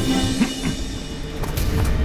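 Dramatic background score with timpani-like drum strokes under held tones.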